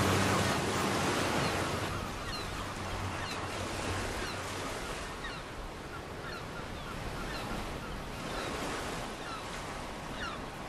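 Sea surf washing onto the shore, with gulls calling repeatedly in short cries over it. The surf is loudest at the start and eases down within the first two seconds.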